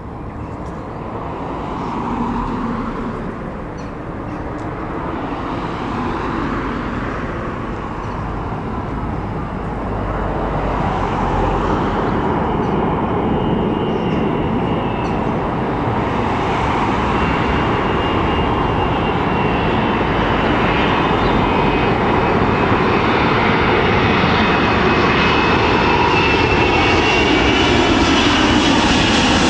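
Airliner engines, a broad rushing noise that grows steadily louder throughout, with a high whine joining in about twelve seconds in.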